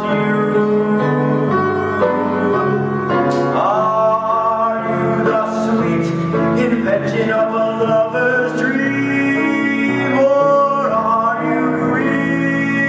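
Teenage boy singing a musical-theatre ballad in a clear voice with long held notes, over instrumental accompaniment.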